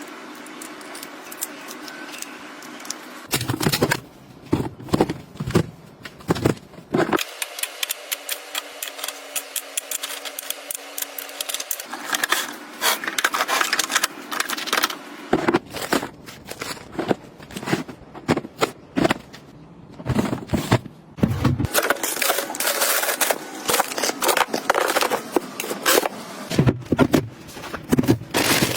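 Small items and containers being handled, set down and arranged: repeated sharp clicks and taps, with rustling and scraping of packaging.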